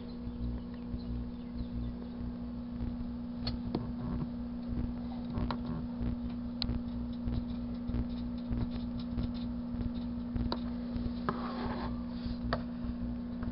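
1984 Kenmore microwave oven running with a steady hum, with scattered sharp crackles and pops and a brief burst of crackling near the end as the typewriter correction tape inside sparks and burns.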